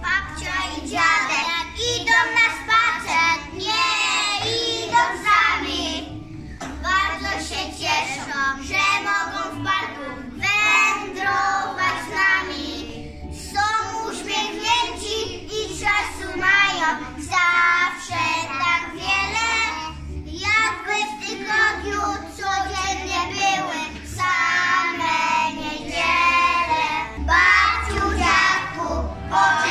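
Young children singing a song together, phrase after phrase with short breaks, over steady backing music.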